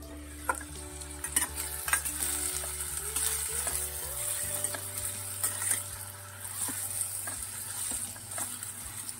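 Cubed potatoes sizzling steadily in hot oil with mustard seeds and cumin in a metal kadai, while a steel spoon stirs them and clicks and scrapes against the pan several times.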